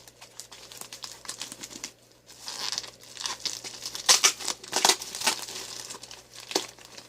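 Packing tape and cardboard of a heavily taped shipping box being cut and pulled open by hand: irregular crinkling and tearing, loudest about four to five seconds in.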